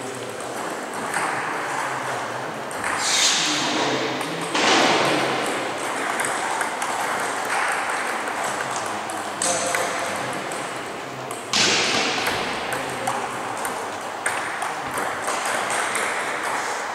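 Table tennis ball clicking off the bats and table during rallies, echoing in a large hall, with background voices and a few louder bursts of noise.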